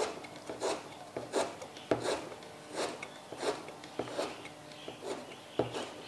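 Chef's knife chopping fresh ginger into fine mince on a plastic cutting board: a steady run of about ten knife strokes, roughly three every two seconds.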